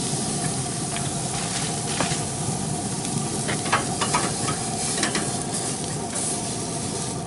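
Ribeye steak sizzling on hot grill grates, with a steady hiss, while metal tongs and a metal spatula click and scrape against the grates a few times as the steak is lifted.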